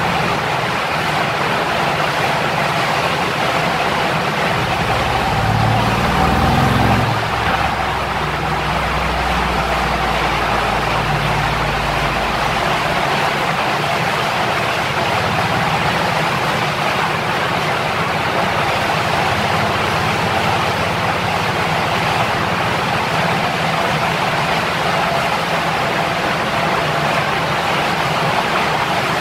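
Mercedes-AMG C63's twin-turbo V8 on a roller dyno, revving up quickly about five seconds in and cutting off sharply around seven seconds, then running on as a low steady rumble that dies away about thirteen seconds in. A steady loud rushing noise runs underneath throughout.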